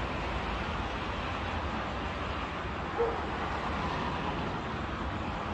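Steady hum of city road traffic heard from high up, a continuous wash of distant cars. A single short sharp sound stands out about three seconds in.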